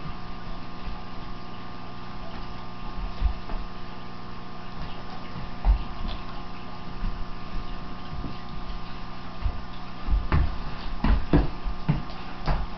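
Two dogs play-wrestling on a rug: scattered soft thumps and scuffles, with a cluster of short, sharper sounds near the end, over a steady electrical hum.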